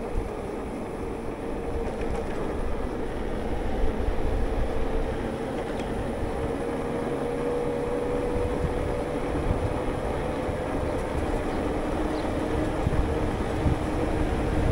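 Riding an electric mountain bike on tarmac: wind buffeting the microphone and tyre rumble, with a faint steady whine that drops to a lower pitch about eleven seconds in.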